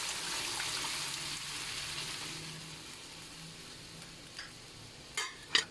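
Hot oil and spice tempering sizzling in a pan as pressure-cooked dal is added, the sizzle fading away gradually; two short clicks near the end.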